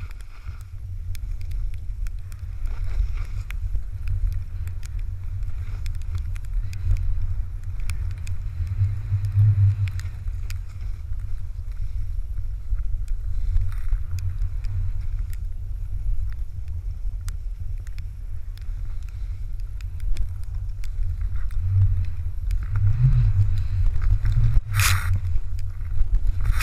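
Wind rumbling on the microphone of a pole-held action camera as a snowboarder rides down through deep powder, with a faint hiss of snow under the board. A short, loud burst of hiss comes near the end.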